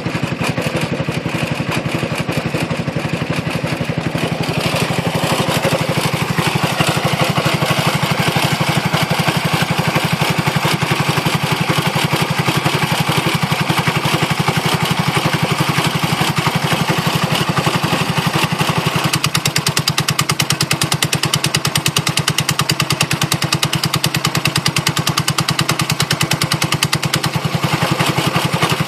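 150cc scooter engine running steadily with a rapid even pulse, along with the noise it makes while the rear brake is pressed. The sound changes character about four seconds in and again about two-thirds of the way through.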